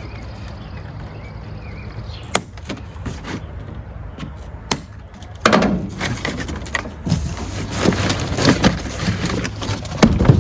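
A cardboard box and its packaging being handled and opened: a few sharp clicks at first, then from about halfway a busy run of rustling and knocks, over a steady low hum.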